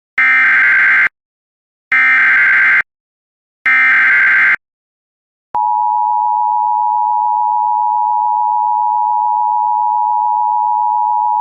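Emergency Alert System SAME header: three loud, screechy digital data bursts of about a second each. About five and a half seconds in, a steady, unbroken attention tone near 1 kHz begins. This signals that a new warning is starting.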